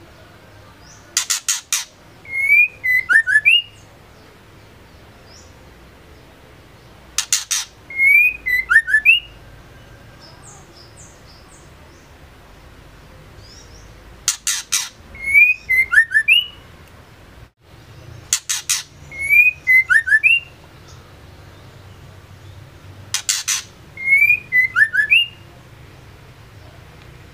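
Female white-rumped shama calling the same short phrase five times, about every five seconds. Each phrase is a few harsh rasping notes followed by a quick cluster of short whistles.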